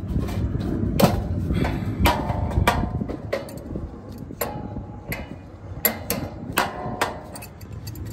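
Irregular sharp metallic knocks and clanks, several with a short ring, from a galvanized sheet-metal blower housing and squirrel-cage wheel being worked on by hand at the hub.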